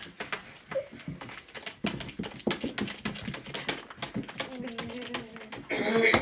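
A cat's claws scrabbling and clicking on the slick floor and sides of a plastic storage bin as it scrambles about, a rapid, irregular patter of scratches. A drawn-out voice joins in from a little past the middle and is loudest near the end.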